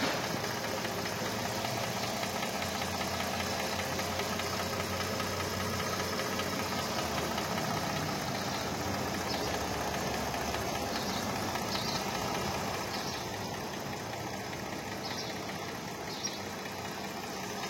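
Mercedes-Benz AMG V6 engine idling steadily while misfiring, with one cylinder bank dead because its three ignition coils have failed.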